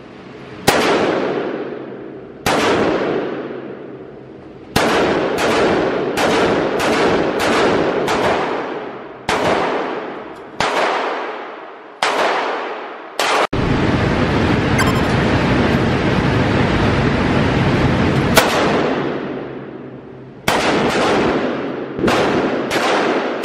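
Gunshots fired at an indoor shooting range, mostly single shots with some quick strings of about two a second. Each shot is followed by a long echoing fade. Partway through, several seconds of steady loud noise take over before the shots resume near the end.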